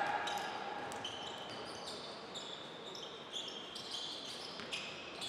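Basketball players' sneakers squeaking on a hardwood court in many short high chirps, with a few knocks of the ball and feet.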